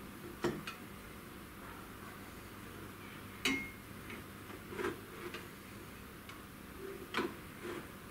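A few light clicks and taps, irregularly spaced, of a metal square being set against the CNC router's aluminium column while it is checked for square. The sharpest tap, about halfway through, rings briefly.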